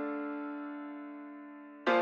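Intro music: a sustained keyboard chord slowly fading, with a new chord struck near the end.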